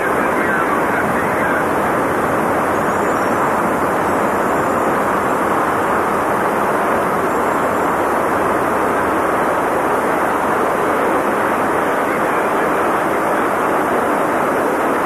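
Steady roar of the fire from a ruptured high-pressure natural gas pipeline, burning as a towering jet of flame.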